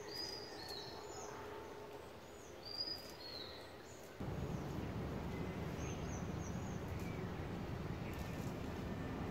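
Birds chirping in short, high, repeated calls over open-air background noise. About four seconds in, a steady low rumbling noise starts abruptly and continues under the chirps.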